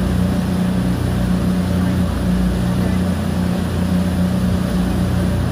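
Outboard motor running steadily at speed, a constant drone, over the rush of water in the boat's wake.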